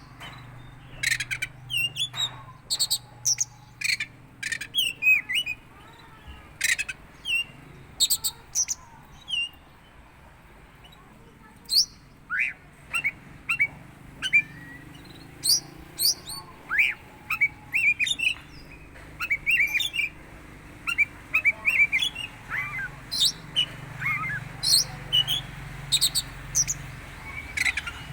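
Oriental magpie-robin (kacer) giving a long run of short, sharp chirps and quick whistled notes in irregular clusters, with a quieter pause in the middle. The keeper finds these calls strange for the bird.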